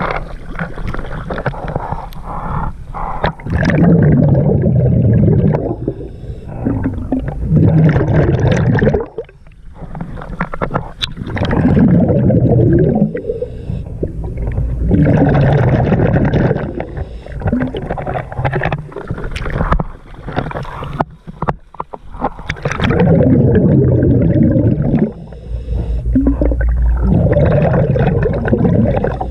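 Scuba diver breathing through a regulator underwater: exhaled bubbles gurgle out in loud bursts about every four seconds, with quieter gaps between breaths.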